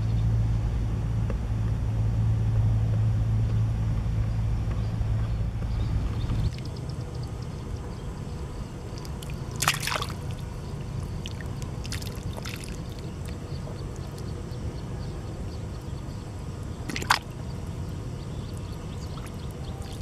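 A steady low hum for the first six seconds cuts off abruptly. Then muddy water trickles and pours down a channel into a dug pit fish trap, with a few sharp splashes as fish slide in.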